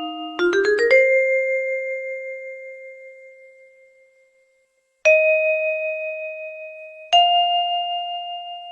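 Phone ringtone of bell-like chime notes: a quick rising run of about five notes that rings on and fades away, then after a brief silence two single notes about two seconds apart, each ringing and dying away.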